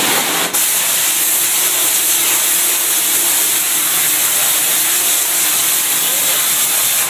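Steady, loud hiss of a pressure washer's water spray hitting a greasy kitchen exhaust hood, with a brief break about half a second in.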